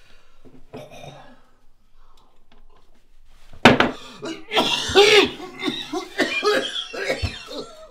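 A man coughing in distress as he has a heart attack. It starts with quiet, laboured breathing, then a sudden loud coughing fit about three and a half seconds in, which runs on with strained sounds from his voice.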